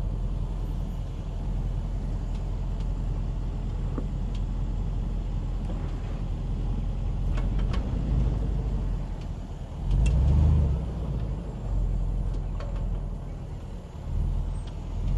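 Range Rover Sport's engine running and pulling in low-range four-wheel drive as the SUV works on a sand slope, a low rumble that rises and falls, loudest about ten seconds in.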